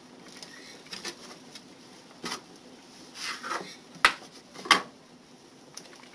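A few sharp clicks and knocks of a knife and hands on a plastic cutting board and against a stainless steel pot, as dough squares are cut and laid into the broth. The two loudest knocks come about four and four and three-quarter seconds in.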